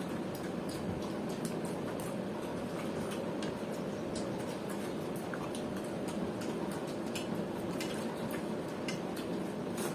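Hands eating watered rice (panta bhat) from steel plates: small wet squelches and light clicks of fingers scooping against the metal, with chewing, scattered irregularly over a steady background noise.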